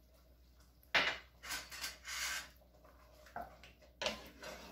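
A wooden spoon stirring thick sauce in an enamelled cast-iron pot: scraping and knocking against the pot, with a sharp knock about a second in and another about four seconds in.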